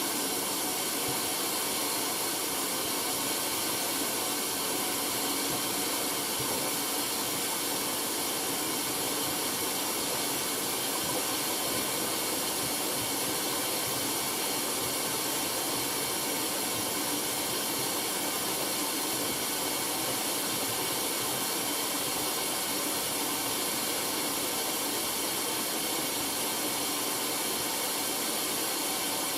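Hoover AAA160 washing machine taking in water at the start of a wash cycle, a steady hiss of water rushing in through the inlet.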